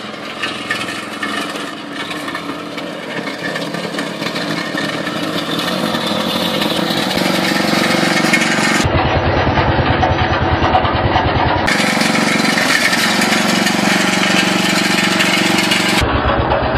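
Small petrol engine of a ride-on garden tractor running steadily, growing louder as it drives up close.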